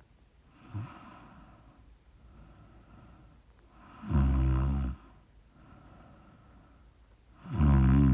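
A sleeping person snoring: a short, softer snore about a second in, then two loud snores, each about a second long and some three and a half seconds apart, with faint breathing between them.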